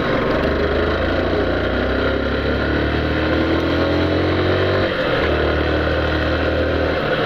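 Yamaha Factor 150's single-cylinder engine pulling under acceleration over steady wind noise. Its pitch climbs steadily, breaks off about five seconds in at a gear change, then carries on lower.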